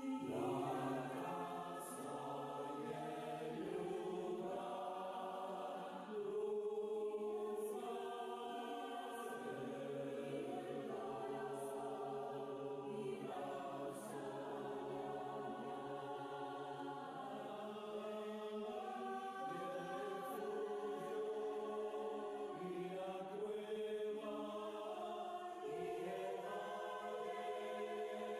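A choir singing slow, sustained chords, voices only.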